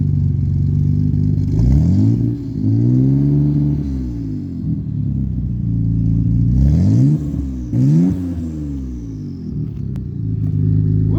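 Mitsubishi 3000GT VR-4's twin-turbo V6 running and being revved: the engine note rises and falls about four times, holding a steady pitch in between.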